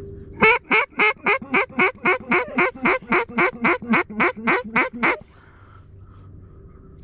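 Duck call blown in a fast, even string of about eighteen quacks, roughly four a second, each dropping in pitch, stopping abruptly about five seconds in.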